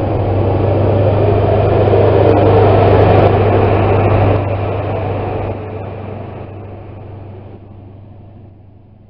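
Class 43 HST power car's MTU diesel engine running under power as the train moves past, with a deep steady hum and rumble that builds for about three seconds, then fades as it draws away.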